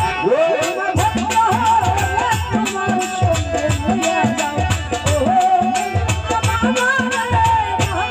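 Bengali Baul folk song performed live: a woman singing into a microphone over rattling percussion that keeps a steady beat.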